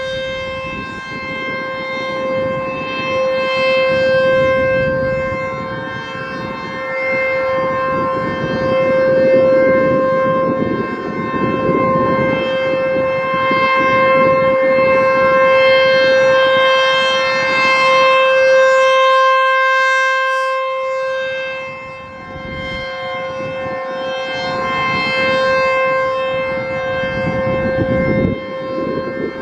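American Signal T-128 outdoor warning siren sounding a steady single-pitch tone in a test. It grows louder and softer by turns every several seconds as it rotates.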